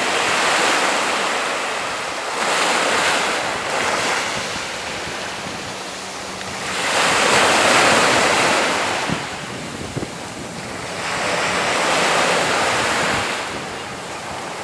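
Sea surf washing ashore, a steady hiss that swells and fades about every four to five seconds as waves come in.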